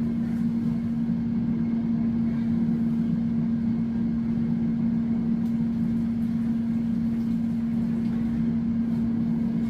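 An electric kitchen appliance's fan motor humming steadily: one unchanging low tone with a rushing noise under it.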